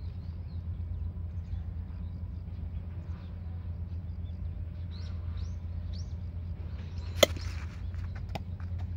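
A bat striking a pitched baseball: one sharp crack about seven seconds in, over a steady low outdoor rumble with a few bird chirps shortly before.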